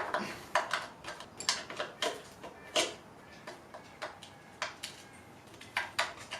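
Irregular sharp metallic clicks and clinks of hand tools working on an engine, about a dozen short ticks spaced unevenly.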